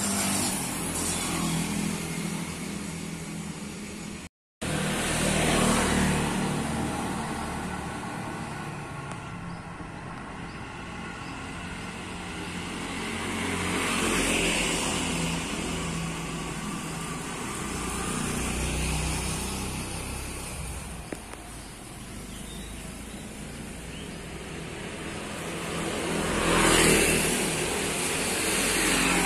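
Street traffic, mostly motorcycles, passing one after another. Each swells and fades over a steady engine hum, and the loudest pass comes near the end. The sound cuts out completely for a moment about four seconds in.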